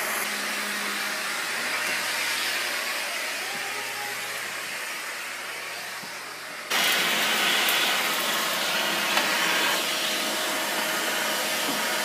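Dyson vacuum cleaner running steadily, with a steady rushing motor noise that jumps abruptly louder a little over halfway through.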